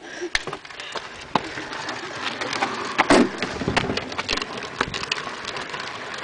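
A wheelbarrow with a rider being pushed over rough ground: a steady gritty rattle from the wheel with scattered clicks and knocks, growing louder about two seconds in.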